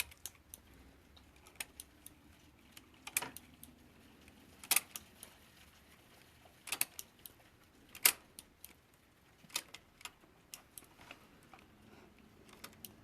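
Light, irregular clicks and taps of a latch tool against the metal needles of an LK150 knitting machine as a seam is latched off stitch by stitch, about one click a second.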